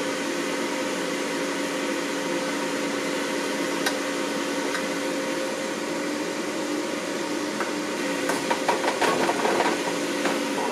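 Philips Airfryer's fan running with a steady hum. A metal spoon scrapes and clinks against chicken wings and the wire-mesh basket, in a busy run of clicks over the last few seconds.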